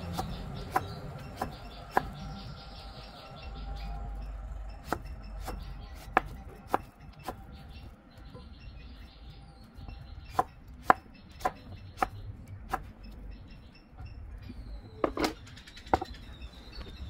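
Kitchen knife chopping through peeled young jackfruit and knocking on a plastic cutting board: a series of sharp, irregular knocks about one or two a second, with a cluster of louder ones near the end.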